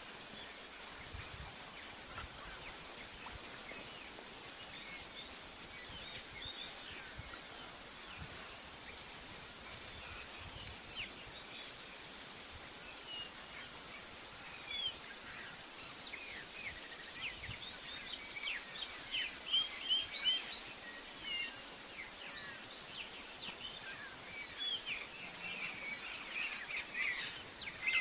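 Insects trilling steadily in a high continuous tone, with a fainter insect call pulsing at an even beat, while birds chirp at intervals, more often in the second half and near the end.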